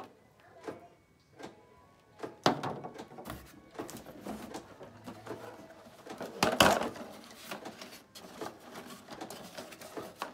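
Cardboard packaging being handled: a few light taps, then a sharp knock about two and a half seconds in followed by rustling and scraping. The loudest moment is a cardboard scrape a little past the middle, as a smaller box is slid out of the larger one, then more crackling as it is opened.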